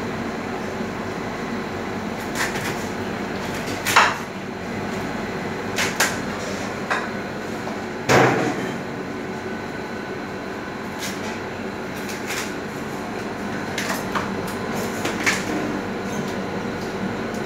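Irregular sharp knocks of a chef's knife cracking through raw lobster shells onto a plastic cutting board, about ten in all, the loudest about eight seconds in, over a steady hum of kitchen ventilation.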